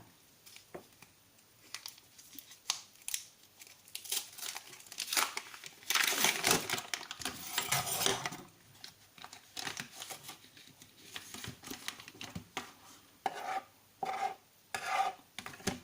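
Food packaging crinkling and tearing as the brie cheese is unwrapped, among small clicks and knocks of handling. The longest, loudest stretch of crinkling comes about six to eight seconds in.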